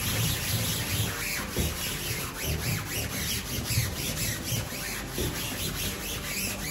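Sponge scrubbing a stainless steel sink and drainboard in quick, repeated back-and-forth strokes.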